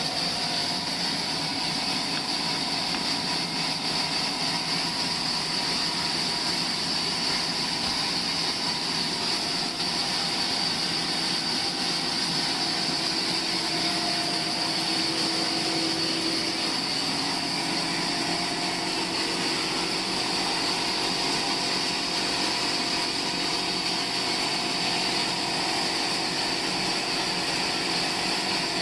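Sawmill machinery running steadily, an even mechanical drone with a high whine that does not let up.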